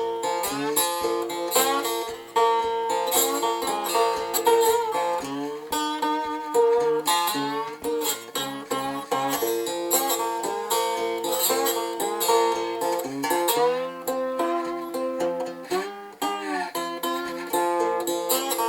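Homemade three-string instrument with a 10-inch galvanized duct cap body, piezo-fitted but heard acoustically, unamplified. Its strings are plucked in a steady run of notes, some of them gliding in pitch.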